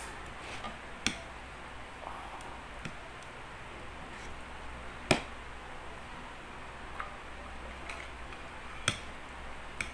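Metal forks clinking against ceramic plates as spaghetti is served, a few scattered sharp taps with the loudest about five seconds in, over faint steady room noise.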